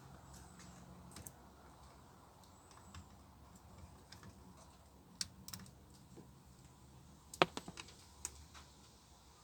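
Scattered light clicks and taps from small plastic and metal parts being handled, with a quick cluster of them about seven and a half seconds in, as the clock spring is worked free of the steering column. A faint low hum runs underneath.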